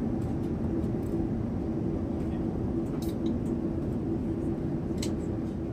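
Steady low drone inside a jet airliner's cabin, engine and air-conditioning noise with a constant hum, and a couple of faint light clicks about three and five seconds in.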